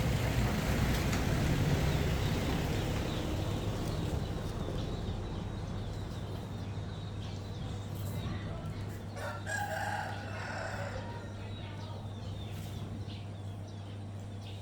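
A rooster crowing once, about nine and a half seconds in, over a steady low hum.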